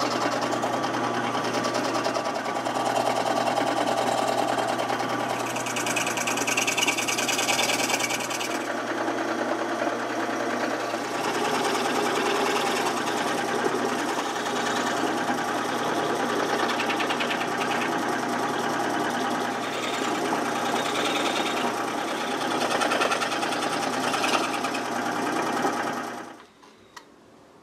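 Scroll saw running and cutting an escutcheon shape out of a glue-saturated rosewood veneer lamination: the rapid reciprocating chatter of the blade over a steady motor hum. It stops about a second before the end.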